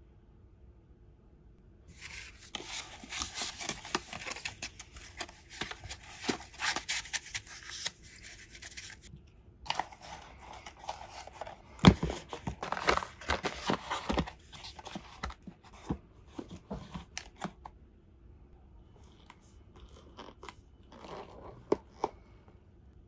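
Gloved hands handling a leather carrying case and fitting a small speaker into it: bursts of rustling and scraping, with one sharp knock about halfway through.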